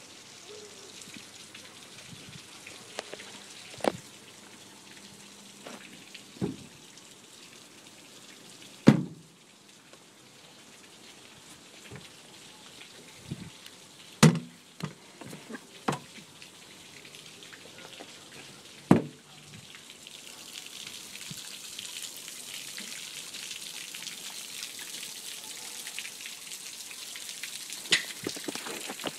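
Scattered knocks and thumps on an aluminum boat's hatch lids and hull as it is handled, over a steady hiss of light rain that grows louder in the last third.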